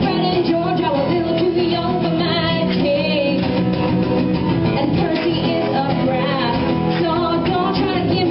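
A woman singing a song while accompanying herself on acoustic guitar, performed live.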